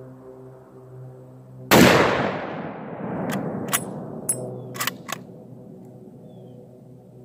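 A single shot from a .416 Ruger bolt-action rifle, about two seconds in, with a long echo rolling away after it. It is followed by a quick series of sharp metallic clicks as the bolt is worked to eject the spent case and chamber the next round.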